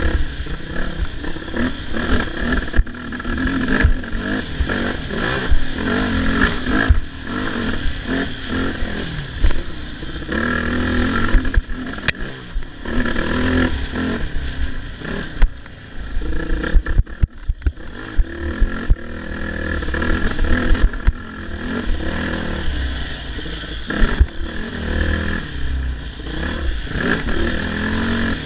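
Dirt bike engine riding a bumpy trail, revving up and down with the throttle, with rattling and knocks from the bike going over bumps.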